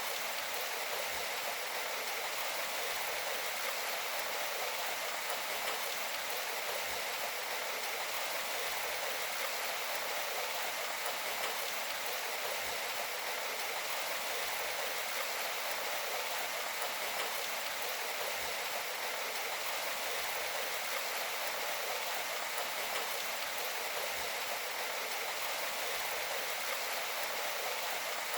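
Steady, even hiss of rain, with no distinct drops or changes.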